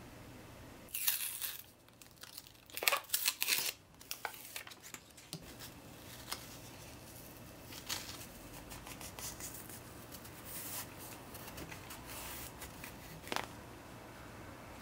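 Paper backing crinkling and tearing as the release liner is peeled off a self-adhesive felt strip and the strip is pressed onto the edge of a plastic wallpaper squeegee. Two louder bursts of rustling come about one and three seconds in, followed by lighter rustles and small clicks of handling.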